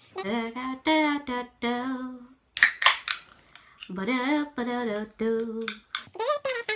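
A woman's singing voice in a song, held notes with a wavering pitch in two phrases, broken about two and a half seconds in by a loud, sharp crack with a hiss.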